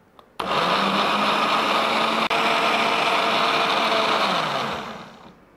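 Countertop blender with a glass jar running, blending mango cubes, sugar and vodka into a purée. The motor starts suddenly about half a second in, runs steadily, then winds down with falling pitch near the end.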